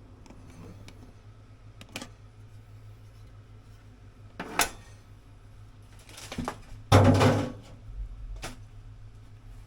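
Metal gear being handled: a few sharp clinks and knocks, then a louder clatter and scrape about seven seconds in.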